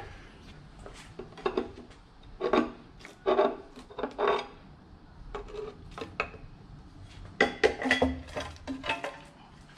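A metal pry bar clinking and scraping against the timing chain cover of a 4.6-litre V8 as the cover is worked loose from its RTV sealant. The clicks and clinks come irregularly, in two busier spells: a few seconds in and again near the end.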